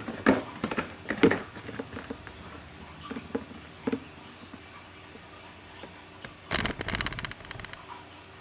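A cat moving about in a cardboard box, rustling the paper shred and scuffing the cardboard. About six and a half seconds in, a second-long burst of dense scratching and rustling is the loudest sound.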